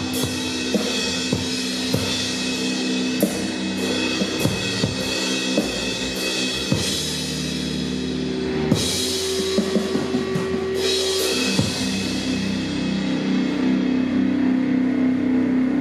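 Slow doom rock: drum kit hits and cymbal crashes over sustained, held guitar and bass tones. About three quarters of the way through the drums drop out and the held chord drones on alone.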